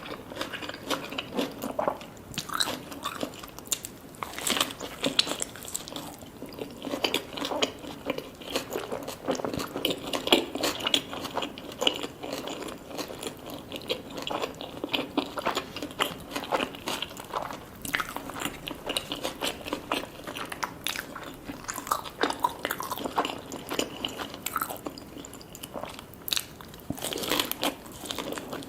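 A person biting and chewing food close to the microphone, with steady crunching and many small clicks.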